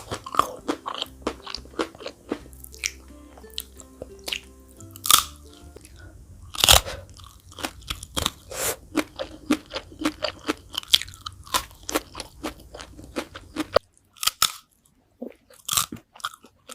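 Close-miked crunching and chewing of fried chicken feet: a dense run of sharp, crisp bites over soft background music. The music stops about 14 seconds in, leaving a few scattered crunches.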